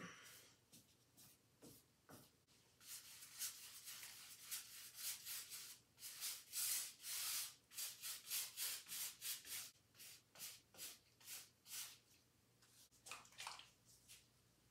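Paintbrush bristles scrubbing paint onto a canvas in quick, scratchy back-and-forth strokes, several a second. The strokes begin about three seconds in, stop near twelve seconds, and come again briefly twice near the end.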